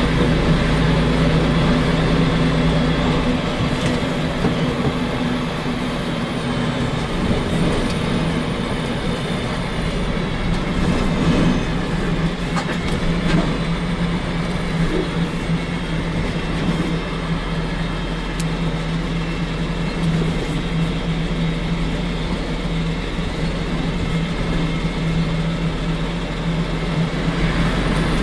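Diesel engine of a semi-truck loaded with almost 30 tonnes, running steadily under way, heard from the cab over road and tyre noise. Its steady hum weakens a few seconds in and comes back strongly in the second half.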